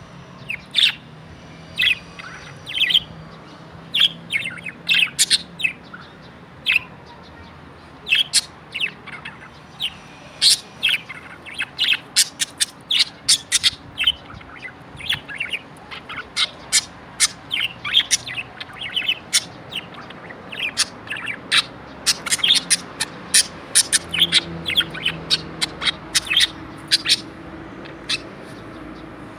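Budgerigar chirping: a run of short, high chirps, scattered at first and coming quickly one after another through the second half.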